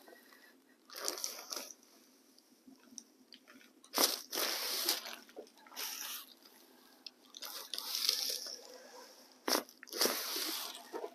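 Crinkling and rustling of a paper headrest cover and clothing as the patient's head is handled and turned, in several bursts about a second long, with a sharper crackle about four seconds in.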